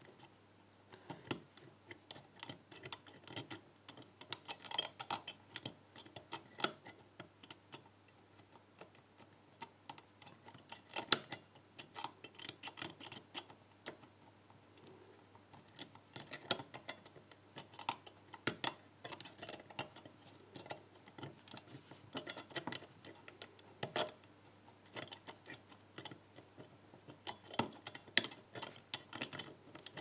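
Steel lock pick and tensioning tool clicking and scraping irregularly against the levers inside a Krishna Special 7-lever brass padlock, as the levers are lifted one by one under tension. The clicks come in uneven clusters, over a faint steady hum.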